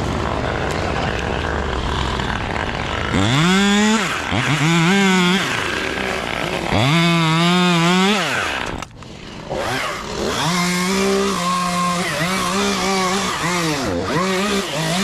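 Chainsaw engine revved in three short throttle bursts, each pitch rising and falling. After a brief drop it runs at high speed with its pitch dipping and rising repeatedly.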